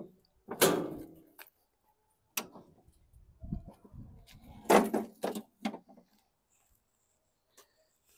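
A rusty steel-deck Craftsman push mower being turned back over and set down on its wheels on concrete: a scraping clatter about half a second in, then scattered knocks and rattles of the deck, wheels and handle, loudest about five seconds in.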